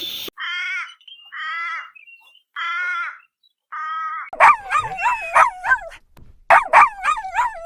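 A dog whining: four short, separate high whines, then two bouts of rapid, wavering yelps about halfway through.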